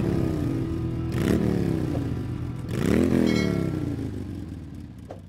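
Motorcycle engine revved three times, each throttle blip rising sharply in pitch and then falling back, the sound fading out near the end.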